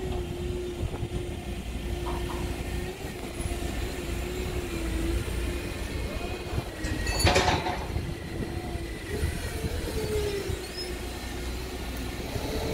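Hyster forklift running, with a low engine rumble under a steady, slightly wavering whine. About seven seconds in there is one brief, sharp burst of noise.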